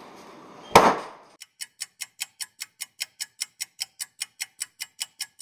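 A single loud bang about a second in, then a clock ticking fast and evenly, about five ticks a second, with silence between the ticks.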